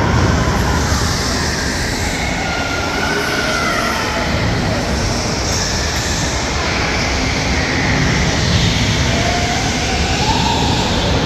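Electric go-karts running around an indoor track: a steady din with motor whines that rise and fall in pitch as the karts speed up and slow down, the clearest rising whines about nine seconds in.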